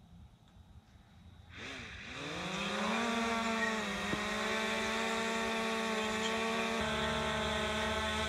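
Small quadcopter drone's propellers spinning up about a second and a half in as it is launched from the hand. The rising whine levels off into a steady hum while it hovers.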